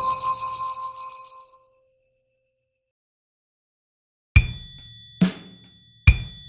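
Backing track's final chord, with bell tones, ringing out and fading away over about a second and a half, then silence. About four seconds in, a drum count-in starts: three evenly spaced percussion beats, the lead-in to the next play-through of the accompaniment.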